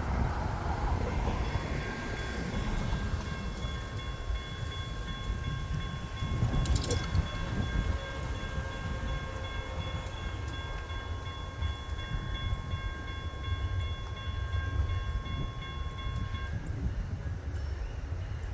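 An Amtrak train passing on street-running track, with a heavy low rumble throughout. Over it, a steady chord of several high tones starts about a second in and stops shortly before the end.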